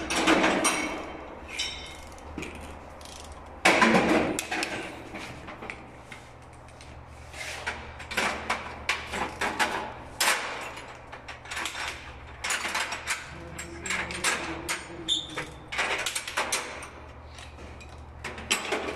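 Torque wrench ratcheting in short runs of quick metallic clicks as the metal fitting on a high-voltage cable termination's insulator is tightened. There is a sharp knock about four seconds in.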